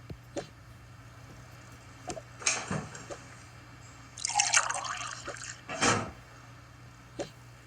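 Liquid being poured, in short spells, with scattered clicks and knocks of items being handled.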